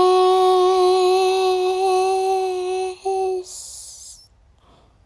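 A child's voice singing one long, steady held note for about three and a half seconds, with a brief break near three seconds, ending in a short breath.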